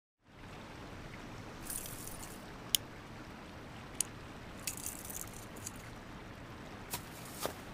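Soft, steady outdoor night ambience like gently trickling water, with a few sharp little ticks scattered through, the loudest about three seconds in, after a moment of dead silence at the start.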